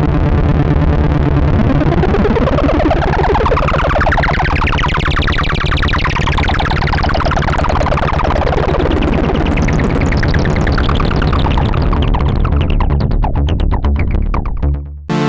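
Korg Mono/Poly analog synthesizer playing a dense, rapidly pulsing buzz, with a sweep that rises over a few seconds and falls back down. The sound thins out and cuts off near the end.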